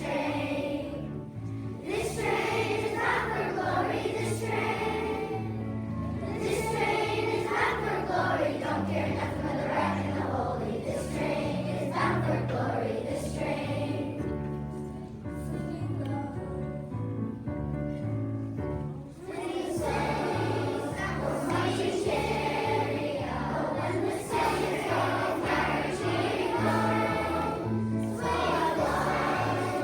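A choir singing a spiritual over an instrumental accompaniment with a steady stepping bass line. The singing eases off a little midway, then returns at full strength.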